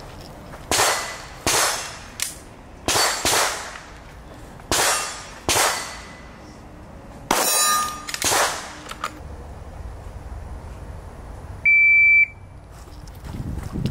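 About eight handgun shots fired in an uneven string over the first nine seconds, each a sharp crack with a short ringing tail. Near the end comes a single high electronic beep about half a second long.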